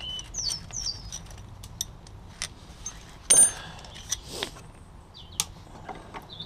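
Socket wrench and extension bar clicking and tapping on the motorcycle's rear sprocket nuts as they are fitted: scattered metallic clicks, with one sharp ringing metal clink about three seconds in. Birds chirp briefly near the start.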